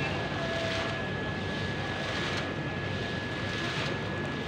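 Water of a dancing fountain's jets splashing into the basin, with hissy surges as the jets fire about two and a half seconds in and again near the end, over a steady low hum and a thin constant high tone.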